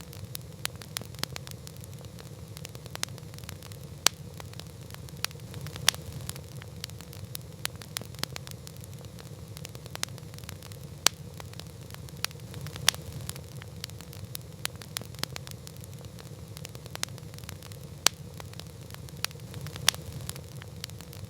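Campfire crackling: irregular sharp pops and snaps, a few of them much louder, over a steady low rumble of the burning fire.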